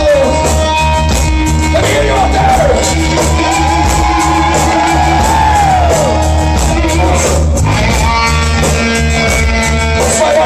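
Loud live rock band: distorted electric guitar, bass and drums, with a vocalist singing long, wavering lines over them.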